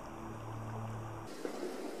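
Creek water running steadily, under a low steady hum that cuts off abruptly about a second in.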